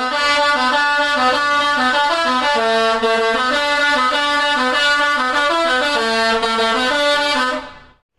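Bus telolet horn, a multi-tone air horn, playing a quick melody of stepped notes, several notes a second. It fades out near the end.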